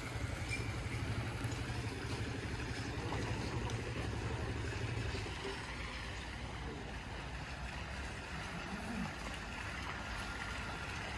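Outdoor street ambience with a steady low engine rumble that fades about halfway through, over a general hiss.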